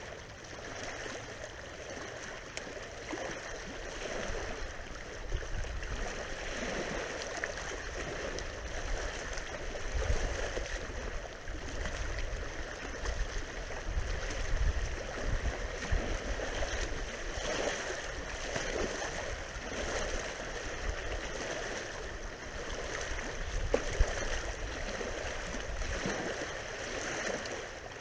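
Wind rushing and buffeting the microphone in gusts, with cedar branches rustling as they are handled and stacked.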